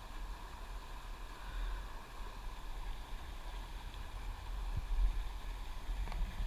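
Low, uneven rumble of wind buffeting the camera microphone, over a faint background hiss of the river.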